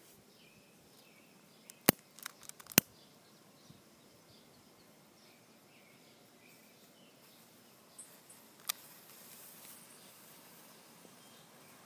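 Two sharp clicks about a second apart, with a few softer ticks between them, over faint bird chirps. Near the end a faint hiss sets in as the snake firework catches and starts to burn.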